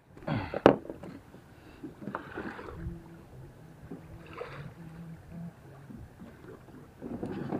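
Low hum of a boat engine at sea, coming and going, with a few short louder noises; the loudest comes right at the start.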